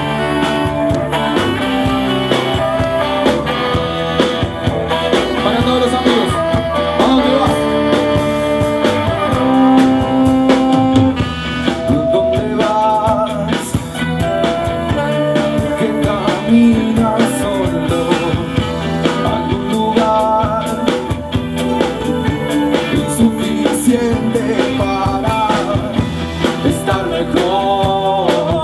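A blues band playing live through a stage PA: electric guitars, bass, drum kit, saxophone and keyboard, with a lead vocal. It plays steadily, at full volume, all the way through.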